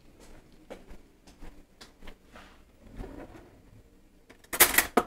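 Scattered faint clicks and knocks off-camera, then about four and a half seconds in a short loud sliding rattle ending in a sharp click: a kitchen drawer being opened while a knife is fetched.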